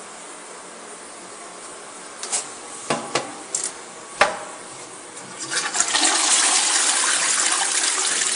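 A few sharp clacks as the toilet seat and lid are lifted and the flush is pressed, then the toilet flushing: a loud, steady rush of water into the bowl starting about five seconds in.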